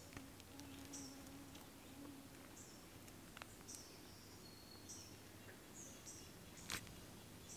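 Faint outdoor ambience with small birds giving short, high chirps over and over, and one sharp click about two-thirds of the way through.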